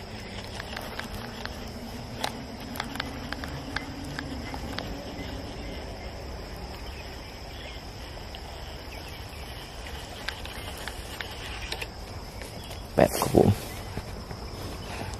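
Steady high-pitched chirring of insects from the marsh, with scattered light ticks and a loud, brief double thump about thirteen seconds in.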